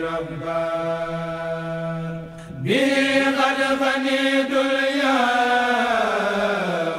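Arabic devotional chant sung with long drawn-out notes. A low held note, a brief dip about two and a half seconds in, then a louder, higher held note that slides down near the end.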